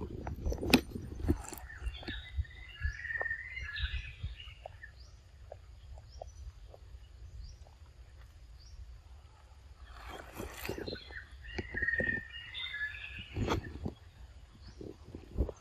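A young macaque picking through cabbage leaves and peanuts on a stone close to the microphone: sharp clicks, knocks and rustles, loudest in the first second or two and again around ten seconds in. Birds sing in the background twice, a few seconds in and again near the end, over faint short chirps repeating throughout.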